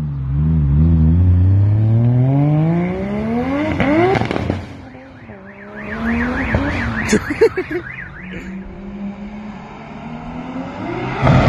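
Turbocharged 1.5JZ straight-six of a Toyota Mark II accelerating hard, its note climbing steeply for about four seconds before the driver lifts off. Then a quieter stretch with a wavering high whistle and a few sharp cracks, and near the end the engine revs up again.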